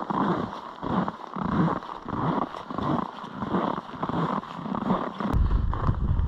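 A hiker's steady footsteps crunching in snow, a bit under two steps a second. Near the end, wind begins buffeting the microphone with a low rumble.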